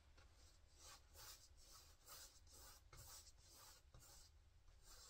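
Paintbrush stroking acrylic paint onto a stretched canvas: a faint series of scratchy brush strokes, about two a second.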